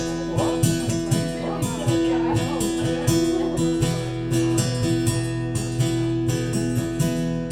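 Acoustic guitar strumming chords as the instrumental intro to a song, with the chord changing about four seconds in.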